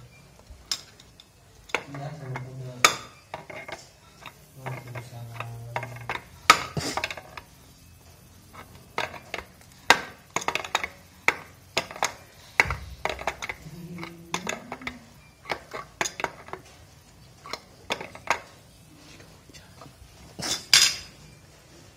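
Adjustable steel wrench clinking and tapping against the metal fittings of a fuel pump as the fittings are tightened: an irregular string of sharp metallic clicks, a few of them loud, the loudest near the end.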